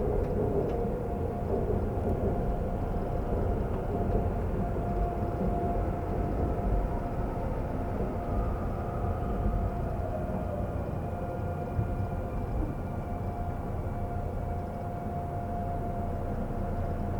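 Seoul subway train running: a steady low rumble with a thin electric-motor whine held over it, the whine drifting slightly in pitch.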